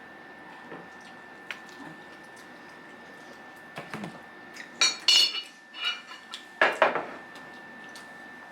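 Dishes and utensils clinking at a meal: a few light taps, then around five seconds in a couple of ringing clinks of a plate or bowl, and another knock just before seven seconds.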